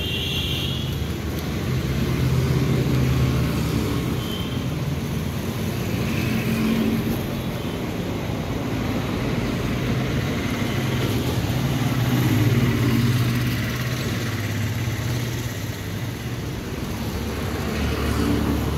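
A motor vehicle engine running steadily, a low hum that swells and eases a little.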